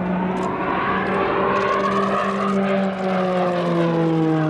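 Pilatus PC-9 turboprop, with its Pratt & Whitney PT6A engine and propeller, droning loudly as it flies past overhead. Its pitch slides down through the second half as the aircraft passes.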